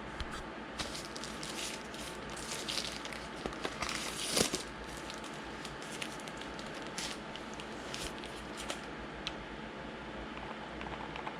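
Light clicks and rustling from unpacking and handling a drone's remote controller, with a louder rustle about four seconds in.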